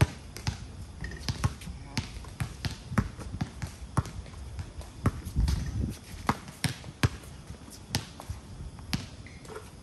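Basketball dribbled on a hard outdoor court: a steady run of sharp bounces, about two to three a second.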